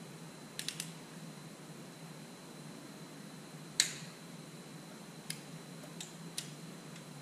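Click-type torque wrench tightening flathead cap screws into an engine block to 40 foot-pounds: one sharp, loud click a little past halfway as the wrench breaks at its setting. Lighter metal clicks and ticks come before and after it.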